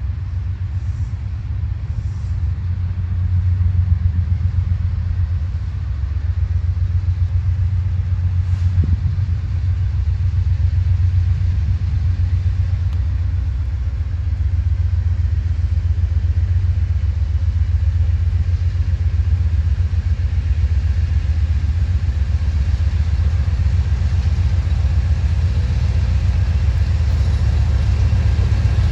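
Amtrak Auto Train's diesel locomotives rumbling as the train pulls away, a steady low rumble that builds slightly a few seconds in.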